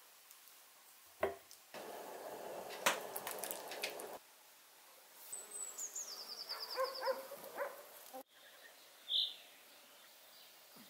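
A knock, then a few seconds of noisy rustling with clicks. After that, hens cluck softly while a small songbird sings a high, falling trill, and one short high chirp follows the trill.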